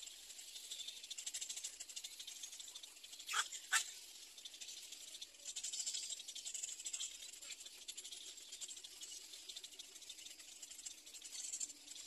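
Little egret chicks in the nest making a rapid, high rattling chatter, with two sharper, louder calls close together about three and a half seconds in.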